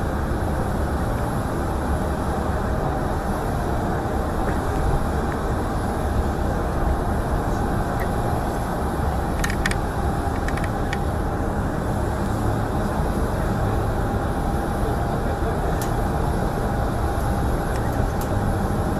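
Steady, loud rumbling background noise of an outdoor airfield with a faint steady hum and some crowd voices; a few sharp clicks about half way through.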